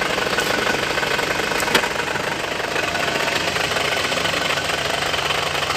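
Isuzu Panther's four-cylinder diesel engine idling steadily with diesel clatter, just after being rebuilt. A single short click sounds about two seconds in.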